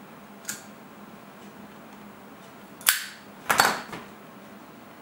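A lighter clicking as a corn cob pipe is lit: a faint click about half a second in, a sharp click near three seconds, and a longer, noisier one shortly after.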